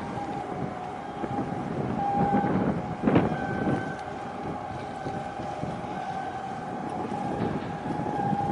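Wind buffeting the microphone, with a steady high hum underneath and a sharp knock about three seconds in.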